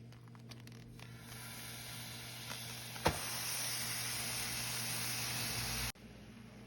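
Gochujang bulgogi sizzling in a hot pan: a steady frying hiss with a sharp click about three seconds in. The hiss is louder after the click and cuts off abruptly near the end.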